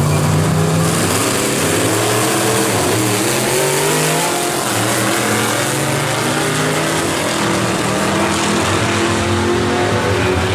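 Two vintage gasser drag cars launching side by side and accelerating hard down the drag strip, their engines revving loud, with the pitch climbing again and again.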